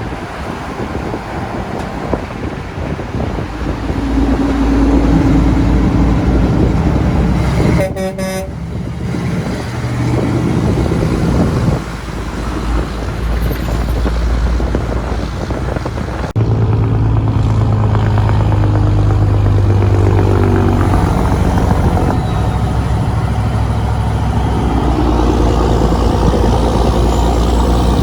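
Truck engines running in road traffic, their low tones changing several times, with a short horn blast about eight seconds in.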